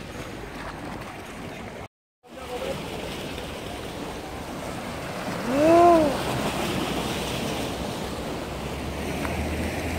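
Sea waves washing against a rocky shore. About halfway through comes a single short shout that rises and then falls in pitch, the loudest sound here. The sound drops out briefly about two seconds in.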